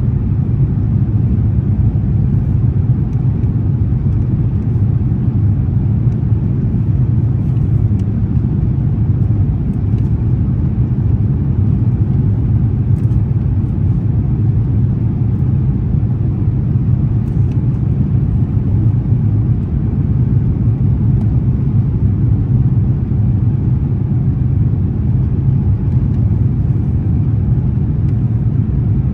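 Jet airliner cabin noise in cruise flight: the engines and rushing air make a steady low rumble inside the cabin.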